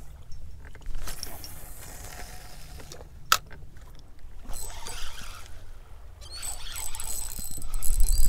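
Quiet handling sounds of hands working a tangled double rig on a fishing rod and line: faint scattered clicks, with one sharp click about three seconds in. A low rumble grows louder near the end.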